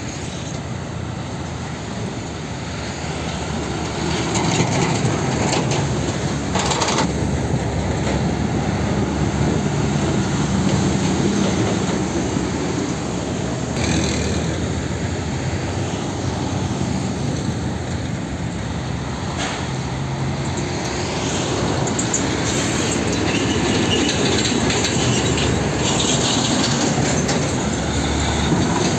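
Heavy diesel trucks driving slowly past one after another, a low engine drone mixed with tyre and road noise. The sound changes abruptly a few times as one truck gives way to the next.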